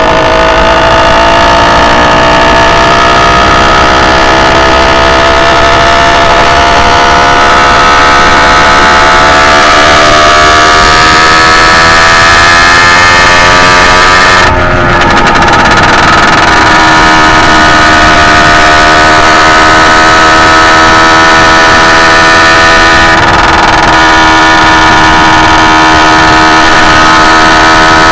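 Loud two-stroke engine of a motorized bicycle running under way, its pitch climbing steadily for about fourteen seconds, then dropping suddenly and holding nearly level after. The engine is still in break-in and running very rich on its main jet, which the owner says makes it sound choppy at the high end.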